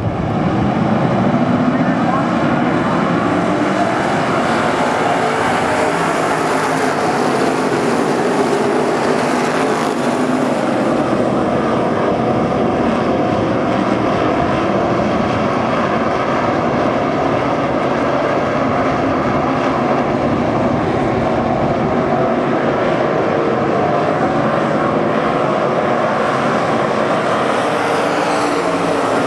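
A pack of dirt-track race cars running at speed, many engines droning at once, with one pitch rising in the first couple of seconds.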